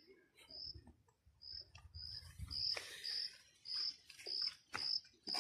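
A cricket chirping in a steady rhythm, about two short high chirps a second, with a few faint knocks.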